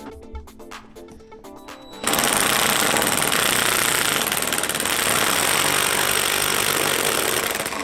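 Impact wrench hammering at a steady rapid rate, starting about two seconds in and running for about five seconds, loud over background music.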